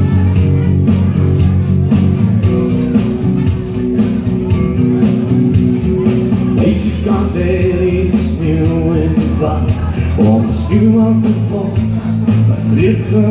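Instrumental music from a backing track played through a PA system, a steady bed of sustained chords, with a melodic line coming in about halfway through.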